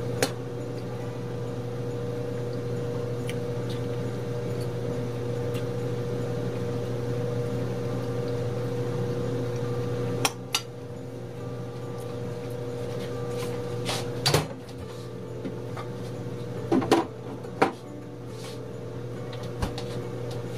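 A metal fork clinking and scraping against a ceramic bowl while eating: a few sharp, scattered clinks, the loudest pair a few seconds before the end, over a steady low hum.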